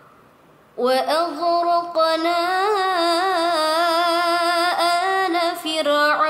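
A young woman chanting Quran recitation in the melodic murottal style. After a short pause, her voice comes in about a second in with a long drawn-out vowel whose pitch wavers and curls in ornaments.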